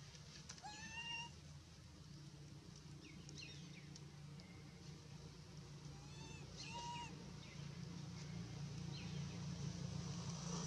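Macaque monkey giving short, arched, high calls, about four of them, some in quick pairs, over a steady low hum.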